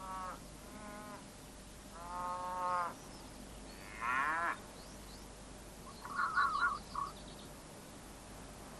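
Red fox calls: several short, whining, pitched calls, then a quick chattering call about six seconds in.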